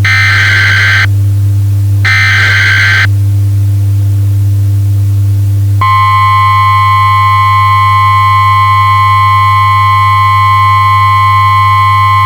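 Emergency Alert System tones: two one-second screeching digital header bursts about a second apart, then, from about six seconds in, the steady two-tone attention signal. A loud low hum runs underneath.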